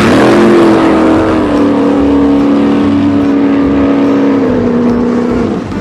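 Motor vehicle engine running steadily with a constant drone whose pitch steps down twice.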